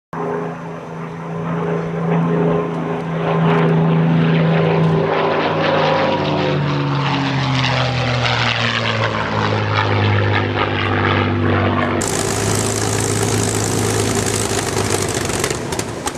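P-51D Mustang's Packard Merlin V-12 engine and propeller in a flyby: a steady drone whose pitch drops as the fighter passes. About twelve seconds in it cuts to the same engine running on the ground close by, propeller turning, a steady and noisier sound.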